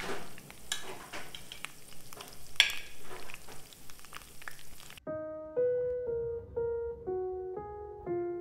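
Steak sizzling and spitting as it sears in a hot pan, with sharp crackles, cutting off abruptly about five seconds in. Then solo piano music: a simple melody of single notes, about two a second.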